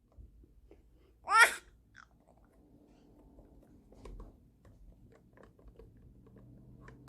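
A baby gives one short, high-pitched squeal about a second in, followed by faint mouth noises and small clicks.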